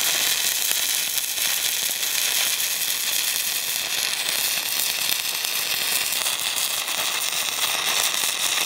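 Stick (MMA) welding arc burning steadily as a coated electrode lays a bead on a metal sheet, a dense continuous crackle and hiss.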